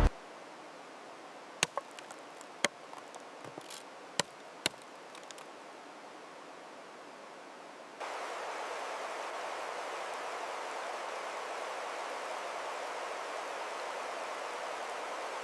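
Steady outdoor ambience hiss with several sharp clicks or snaps in the first five seconds; the hiss steps up louder about eight seconds in.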